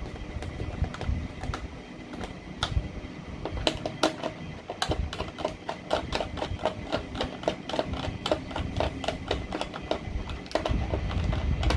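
Small wing bolts being screwed into an RC foam warbird by hand: a run of light clicks from the screwdriver and bolts, sparse at first and then about three or four a second, over low rumbling handling noise from the model being held and turned.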